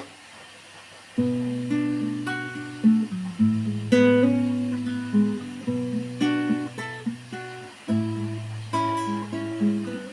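Solo acoustic guitar, starting about a second in, strumming and picking chords in a steady rhythm as the intro to a song.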